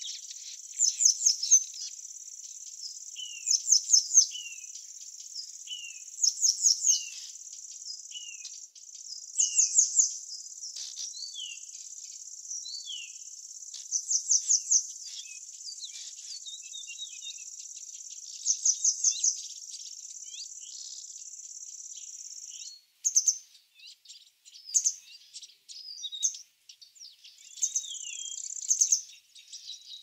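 Birds chirping and calling over a steady high insect trill. Loud groups of three to five quick high chirps repeat every few seconds, with short falling whistles between them. The trill drops out after about 23 seconds, leaving scattered chirps.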